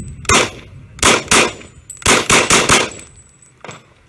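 KRISS Vector pistol-calibre carbine firing in semi-automatic. First comes a single shot, then two shots about a quarter second apart, then a quick string of about four, with a fainter report near the end. A faint high ring lingers after some of the shots.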